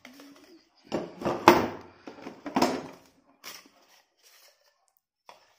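Steel chisel bits in plastic sleeves being handled and knocked against a plastic tool case: a few irregular clatters and scrapes, the loudest about one to two seconds in.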